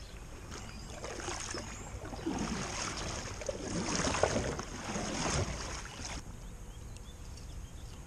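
Double-bladed kayak paddle dipping and swishing through river water, several strokes in a row, dying down to quieter water sounds about six seconds in.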